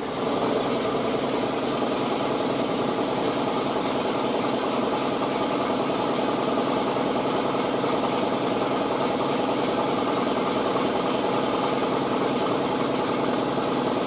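Steady hum of a motor-driven machine running evenly, with no change in speed.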